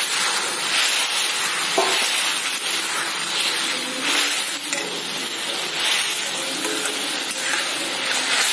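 Hog plum (amra) chutney sizzling in a metal kadai while a metal spatula stirs and scrapes it in repeated strokes, with one sharp tap of the spatula on the pan a little under two seconds in.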